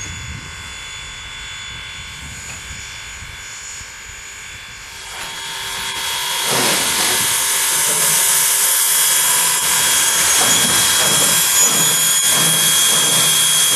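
Steam locomotive hissing steam: a steady hiss with a few high whistling tones in it, building up about five seconds in and then staying loud.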